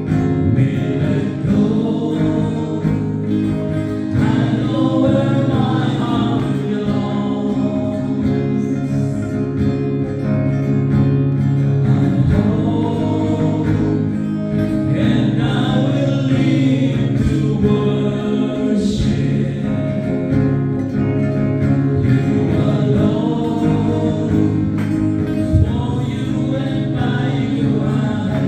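Live praise and worship song: a small band with guitar accompanying group singing.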